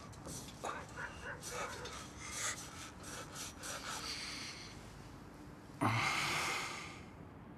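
Rustling and scraping of clothing and rope, with heavy breathing, as a man tied to a log wall shifts. About six seconds in there is a sudden louder rush of noise with a low thump, which fades over about a second.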